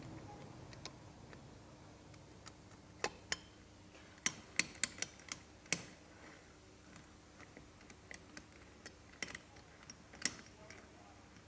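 Scattered sharp clicks and taps of tools and engine parts being handled during motorcycle engine reassembly, bunched in two short runs, over a faint steady hum.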